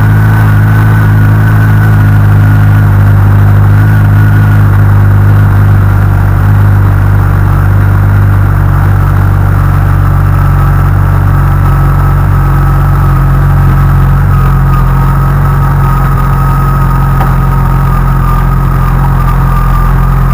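Honda CBR1100XX's inline-four engine idling steadily, with a thin high whine over it that slowly drops in pitch. The owner takes the abnormal noise after a cold start for a faulty cam chain tensioner.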